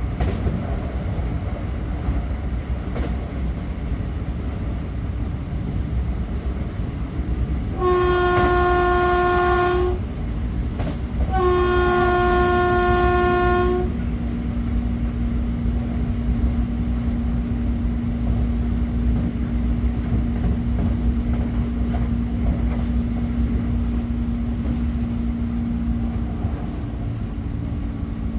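Train ride heard from inside a railroad car: a steady low rumble of the running train. Two blasts of the train horn, each about two seconds long, sound about 8 and 11 seconds in, and a steady low hum joins the rumble after the second blast.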